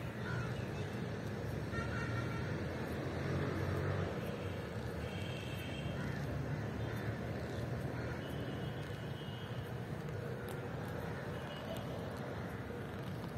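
Steady low engine rumble, like distant road traffic, with a few short high-pitched calls now and then.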